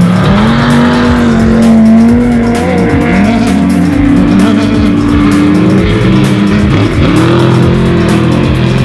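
Unlimited-class off-road race truck's engine running hard, its pitch rising and falling as the revs change, with short knocks scattered through.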